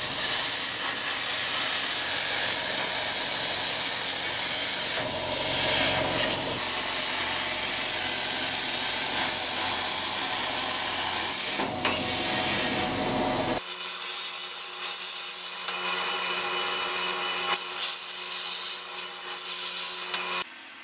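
CNC plasma cutter torch cutting 1.5 mm steel sheet: a loud, steady hiss of the arc and its air jet. About two-thirds of the way in it drops abruptly to a much quieter hiss with a steady hum under it.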